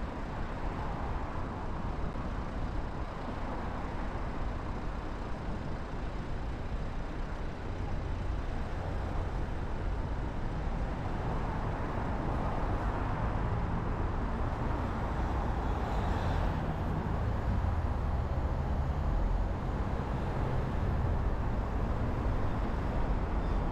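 Road traffic noise heard from a car waiting in traffic and then driving off: a steady low rumble of engines and tyres that grows somewhat louder in the second half.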